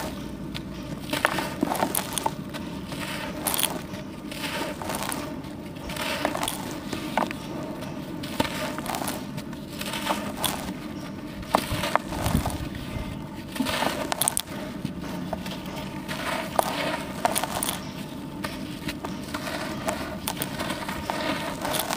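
Dusty charcoal slabs crumbled and crushed by hand: irregular gritty crunches and crackles, with crumbs and powder falling into a plastic tub.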